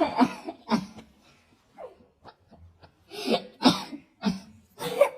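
A person making weird cough-like noises with their voice: short, harsh bursts, a few in the first second and another run from about three seconds in, with a quieter gap between.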